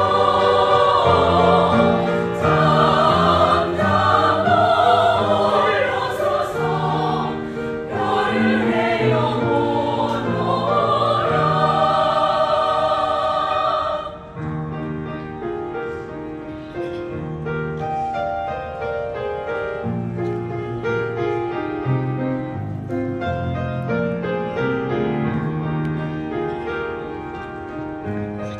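Music: a choir singing loudly over accompaniment. About halfway through the singing gives way to quieter instrumental music of steadier notes, which cuts off suddenly at the end.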